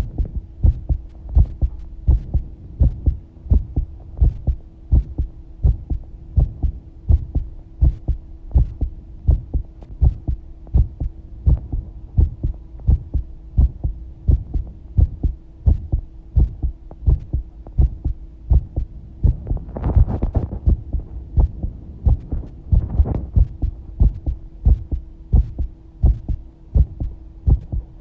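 A human heartbeat heard close up through a microphone on the chest: a steady, even run of low lub-dub thumps. A constant hum sits behind it, and two short swells of rushing noise come about twenty and twenty-three seconds in.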